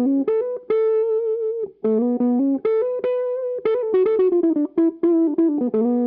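Electric guitar riff played through a Jam Pedals Seagull set to a cocked-wah tone, with no distortion or reverb: clean single notes, some held with a wavering vibrato, then a quicker run of short notes.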